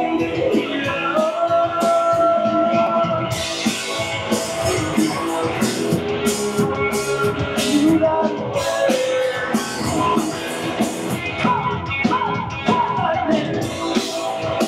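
Live rock band playing: electric guitars, bass guitar and drum kit, with a male lead vocal singing over them at intervals. The cymbals come in harder a few seconds in.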